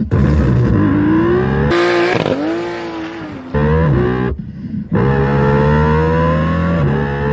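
A man vocally imitating a car engine into a handheld microphone, his voice rising and falling in pitch like revs. There is a brief pause about four and a half seconds in, then a long, slow rise in pitch.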